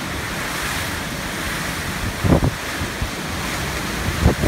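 Typhoon wind blowing hard through trees and palms in heavy rain: a dense, steady rushing, with wind buffeting the microphone. Two brief low thumps stand out, about two seconds in and near the end.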